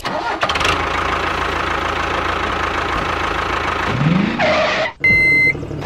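A tractor-like engine running steadily with a low rumble, as the toy tractor drives, with a short rising note about four seconds in. Near the end it cuts out briefly and a single steady high beep sounds.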